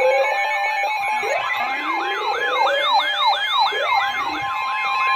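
Several electronic sirens sounding at once: one yelping in quick sweeps about three times a second, others rising more slowly, all over steady alarm tones. A new steady tone comes in near the end.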